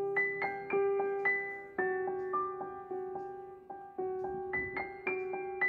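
Background music: a slow, gentle melody of single struck keyboard notes, a few each second, each fading after it is played.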